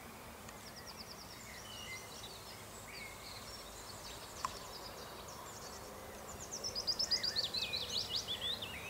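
Songbirds singing over steady outdoor background noise: scattered short chirps and trills, then one loud song of rapid repeated notes falling in pitch near the end. A single short click about halfway through.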